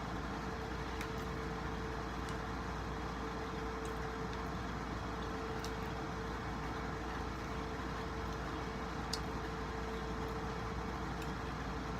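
Steady background hum with one constant tone held throughout, and a few faint scattered clicks, with the eater's chewing kept low under the hum.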